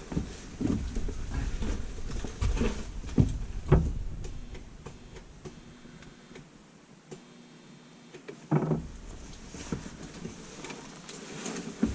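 Several knocks and clicks of handling, then a faint steady hum from the old garbage disposal's motor, powered on but not turning. The motor has blown out, which the plumber confirms by its humming and a little smoke.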